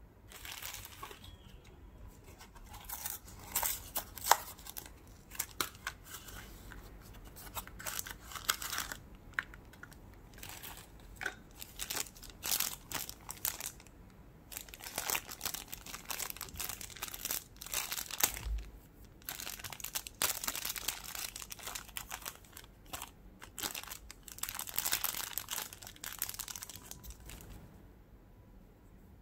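Thin clear plastic bag crinkling and crackling in irregular bursts as it is handled and opened to free a small PVC figure, with a few sharp clicks among the rustling.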